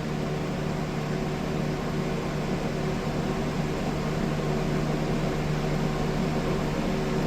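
Steady machine hum with a low drone and fainter higher tones over an even hiss, unchanging throughout.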